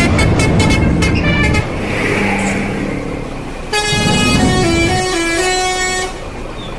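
Telolet basuri multi-tone bus horn playing a tune of steady notes that step from pitch to pitch. The first phrase breaks off after about a second and a half, the bus's engine and a hiss fill the gap, and a second phrase starts about halfway through.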